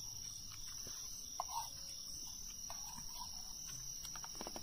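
Steady high-pitched chorus of night crickets, with a few faint clicks.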